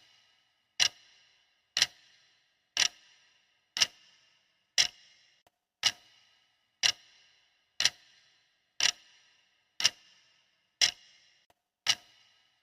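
Clock-ticking sound effect: one sharp tick each second, evenly spaced and steady, each with a short ringing tail.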